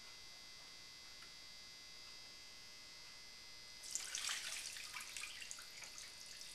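Meat juices poured from a crinkling foil-lined tray into a pot, dribbling and splashing, with the foil rustling; it starts about four seconds in, after only a faint steady hum.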